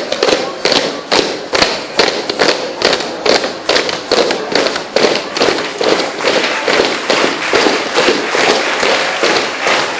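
Loud dance music dominated by a heavy, regular drum beat, about two beats a second.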